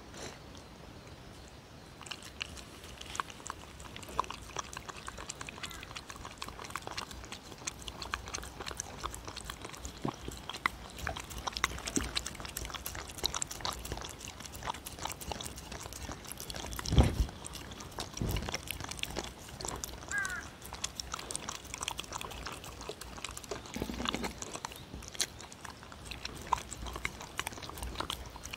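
A dog licking and chewing wet mashed turkey from a wooden bowl close to the microphone: a steady run of small wet smacks and licks. A couple of dull thumps come about two-thirds of the way through.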